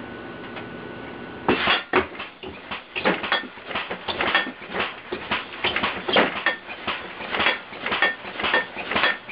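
Air-compressor-powered alarm contraption going off about a second and a half in: a rapid, irregular clanging of metal struck like pots and pans, several strikes a second. Before it starts, a faint steady hum with a thin high tone.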